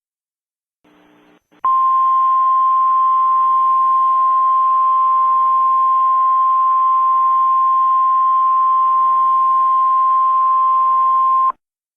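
Emergency alert attention tone: one steady, high-pitched beep that starts about two seconds in, holds for roughly ten seconds and cuts off suddenly, over a faint hiss.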